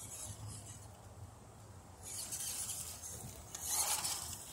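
WPL RC rock crawler driving over gravel: pebbles crunching and rubbing under the tyres with the faint whir of its small electric drivetrain. It is quieter at first and grows louder after about two seconds.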